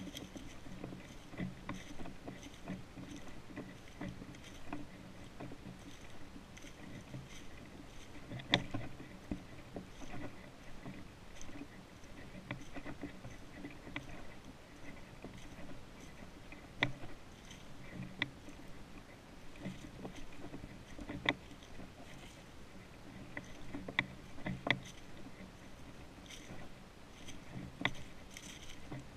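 Footsteps crunching through dry fallen leaves at a steady walking pace, with a few sharper snaps now and then.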